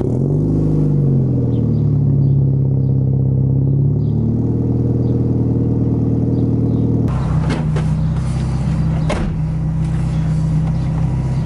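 Nissan Silvia S13's SR20DET turbocharged four-cylinder settling into a fast idle just after catching: the pitch dips, steps up about four seconds in, then holds steady. Partway through, the engine is heard from inside the cabin, with two sharp knocks.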